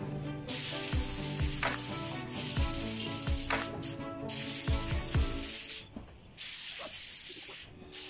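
Background music with a steady beat, dropping out briefly twice in the second half.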